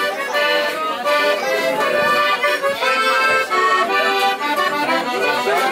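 Accordion playing a lively tune with a live band, in a traditional Mexican style, with held, reedy notes.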